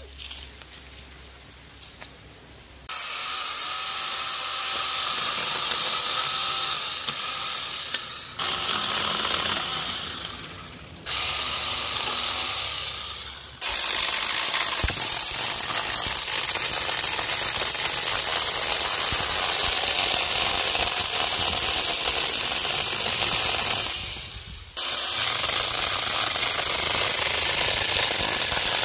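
Parkside PAHE 20-Li A1 cordless pole pruner's 20 V battery chain saw running and cutting through a branch. The motor starts about three seconds in, winds down and restarts three times in short runs, then runs steadily through the cut with one brief break a few seconds before the end.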